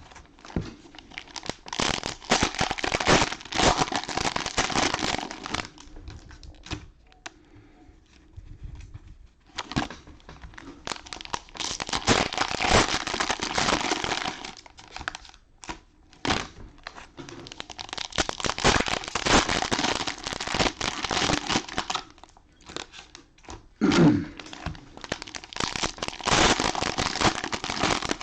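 Cellophane wrappers of Panini Mosaic football card cello packs being torn open and crumpled. The crinkling comes in four spells of a few seconds each, with short pauses between them.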